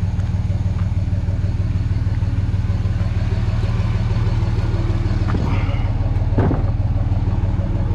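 A vehicle engine running steadily with a low, even drone, and two brief knocks about five and six seconds in.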